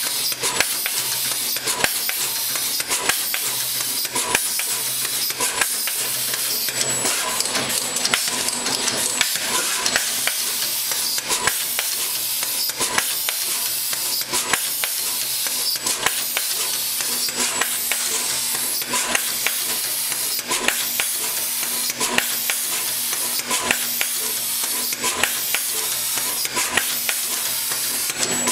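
SMT surface-mount assembly machine running: a steady high hiss with rapid, irregular clicking as it works.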